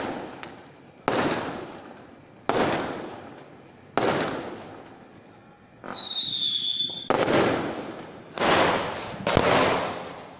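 Aerial fireworks going off: loud bangs about every second and a half, each trailing away in an echo. About six seconds in, a whistling rocket climbs for about a second, and then the bangs come faster, several in quick succession.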